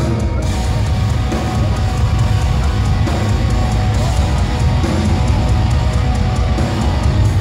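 Post-black metal band playing live: distorted electric guitars and a drum kit at full volume, the whole band coming in a moment after the start over a held tone.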